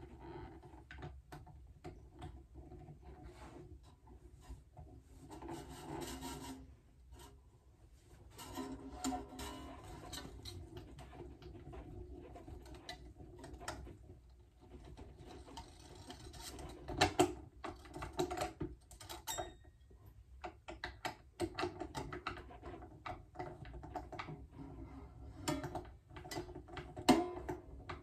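Hands fitting and winding new strings at the headstock of an Epiphone Casino hollow-body electric guitar: irregular clicks, rubbing and rattling of the strings and tuning pegs, with the loose strings briefly ringing as they are handled.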